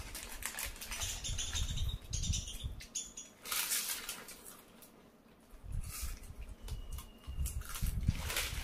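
Lay's potato chip packets crinkling and rustling as hands dig in and out of them for chips, in irregular bursts with a quieter spell in the middle.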